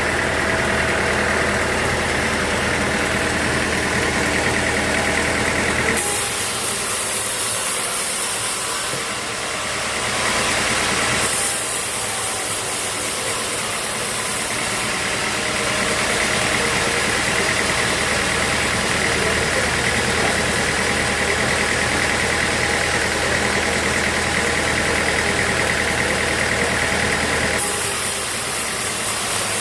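Sawmill machinery running steadily with an engine-like hum; about six seconds in a loud high hiss sets in and lasts until about fifteen seconds in, with a short dip in the middle.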